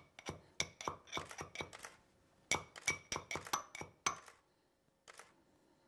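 Metal pestle pounding green cardamom pods in a small stainless steel mortar: quick, lightly ringing clinks, several a second, in two runs with a short pause about two seconds in, then a single strike about five seconds in.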